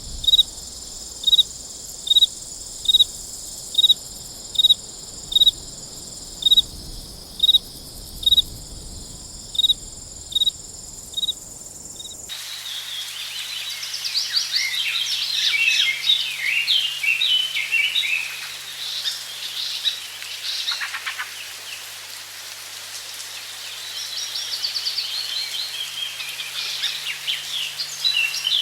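A cricket chirping steadily, a little more than once a second, over a constant high insect drone. About twelve seconds in it cuts abruptly to several birds singing in a dense, warbling chorus.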